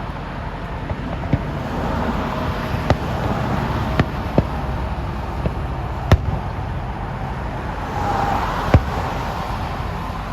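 Fireworks shells bursting, sharp bangs at irregular intervals, about six to eight of them, the loudest about 6 s and 9 s in, over a steady background noise.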